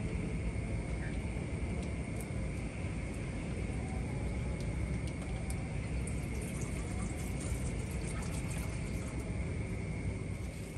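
Steady low rumble of surf on the shore, with a constant thin high-pitched hum over it and a few faint clicks in the second half.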